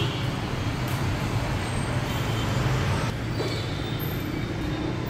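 Steady low rumble and hiss of background noise, with a constant low hum and no distinct events.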